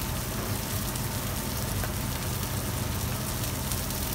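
Burger patty, halloumi and a fish fillet sizzling on a hot flat-top plancha griddle, a steady frying crackle with faint spits, over a steady low hum.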